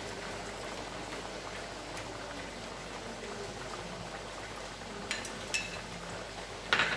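Coconut-gravy fish curry bubbling steadily at the boil in a pot, with a few short sharp clicks of a spoon against the pot about five seconds in and near the end.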